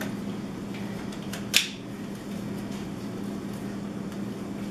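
A few light plastic clicks, one sharp and loud about a second and a half in, as a vacuum's flexible extension hose attachment is handled. Under them runs a steady low hum of room noise.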